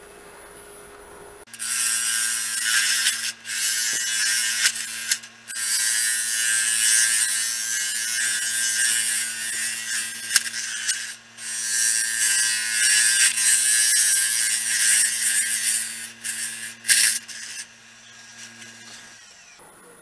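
A handheld power tool, the "Beaver", starts about a second in and runs with a steady motor hum. It works the cedar turning on the lathe with a loud hiss that breaks off briefly a few times, and stops near the end.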